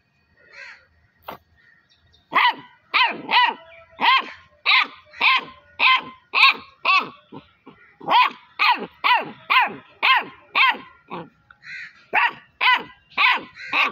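A puppy barking over and over in short, high barks, about two a second, starting a couple of seconds in, with a brief pause shortly before the end.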